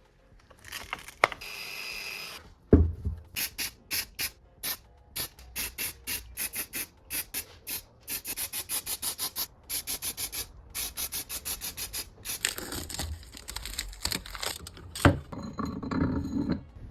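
Rhythmic rubbing and scraping strokes on the metal of a bench vise under restoration, about three to four strokes a second and quickening partway through, with a couple of sharp knocks.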